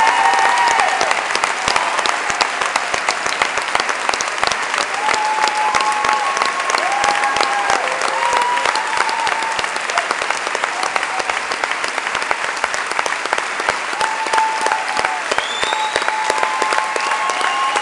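A theatre audience and cast applauding steadily, a dense clatter of many hands clapping, with a few brief voices calling out over it.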